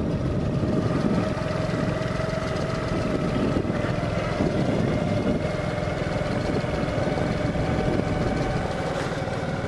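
A motorbike engine running steadily while riding, with an even drone and no change in speed.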